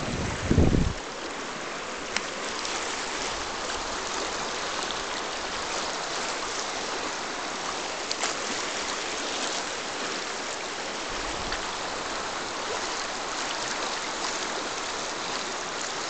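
Shallow river water running over stones and small rapids, a steady hiss. Wind buffets the microphone briefly at the start.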